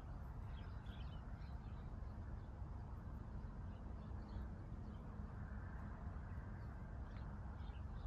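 Faint, scattered high bird chirps over a steady low rumble.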